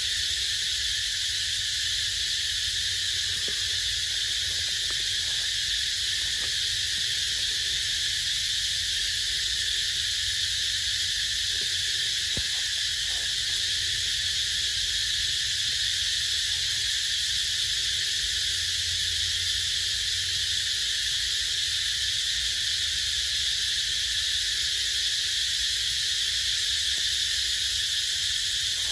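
Steady insect chorus: a constant, unbroken high hiss over a faint low rumble.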